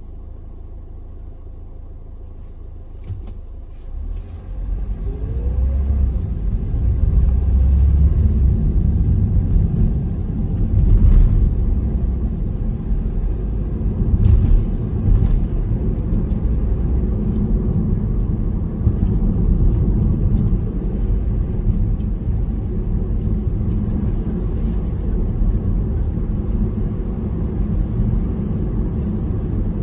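Car driving on city streets: low engine and tyre rumble grows louder about four seconds in, with a brief rising engine note as it picks up speed, then steady road rumble while it drives on.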